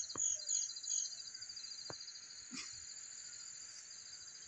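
Insects trilling steadily: a fast-pulsing high buzz, with a few short, higher chirps in the first second.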